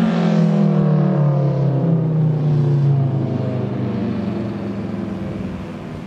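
Federal Signal Thunderbolt 1000T 4/5-port rotating siren winding down after its full-alert signal, its pitch falling steadily and its sound fading in the latter half.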